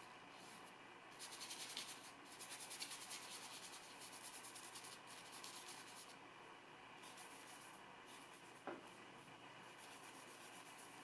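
Faint scratchy rubbing of a flat hog-bristle brush working oil paint, in a run of strokes for about five seconds, then a few weaker strokes, with one short tick about eight seconds in.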